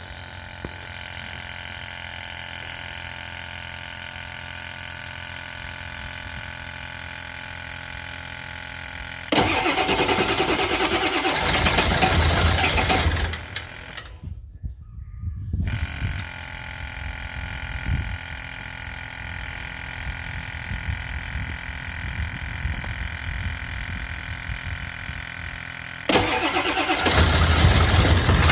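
7.3-litre V8 diesel engine being cranked over by its starter in two long attempts, one about nine seconds in lasting some four seconds and another starting near the end. Between the attempts there is a steady hum. The engine is hard to start.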